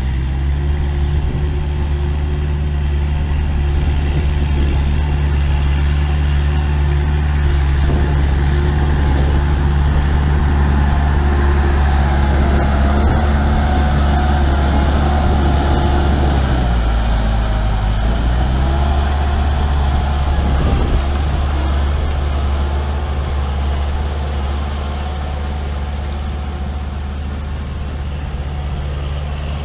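Kubota tractor's diesel engine running steadily and loudly. About 17 s in the engine speed dips for a couple of seconds, then picks back up.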